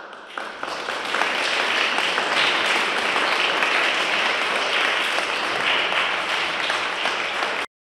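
Audience applauding: the clapping builds over the first second, holds steady, and cuts off abruptly near the end.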